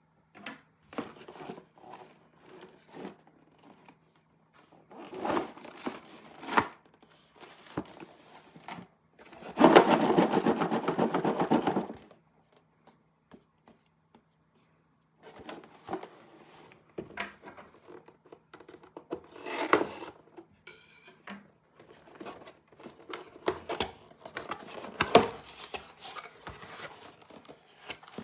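Hands handling and opening a cardboard toy box: scattered taps, scrapes and rustles of cardboard, with a louder stretch of continuous rustling lasting about two seconds around ten seconds in.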